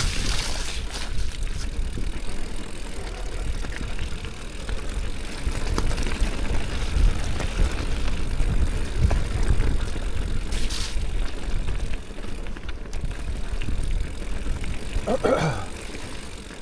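Mountain bike riding down a trail: wind rumbling on the action camera's microphone over steady tyre noise, with occasional clicks.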